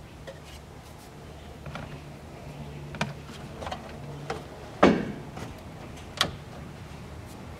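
Handbrake lever and engine-cover parts being handled and set in place: scattered metal clicks and knocks, the loudest about five seconds in.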